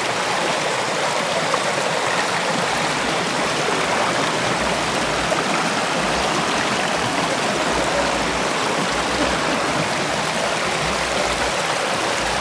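Shallow rocky river running over stones: a steady rushing hiss of flowing water.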